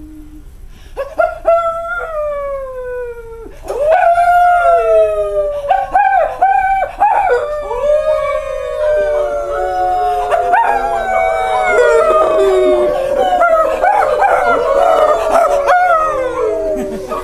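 A group of people howling like wolves: long howls, mostly falling in pitch and overlapping. A few single howls come first, then more voices join about three and a half seconds in and the howling grows thicker.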